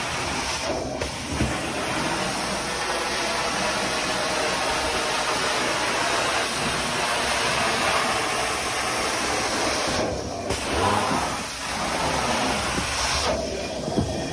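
Carpet-cleaning extraction wand drawn over carpet: steady suction and spray hiss. The high hiss breaks off briefly about three times.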